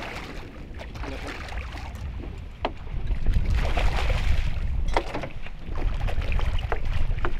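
A hooked golden dorado splashing and thrashing at the water's surface, then wind buffeting the microphone as a low rumble that grows louder about three seconds in, with scattered light clicks.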